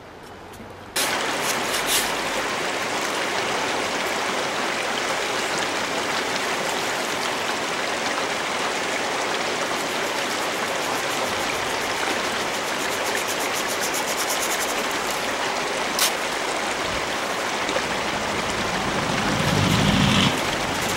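Creek water rushing steadily through an aluminium sluice box, starting abruptly about a second in, while sand is tipped into the head of the sluice from a plastic gold pan. There is a brief louder swell near the end.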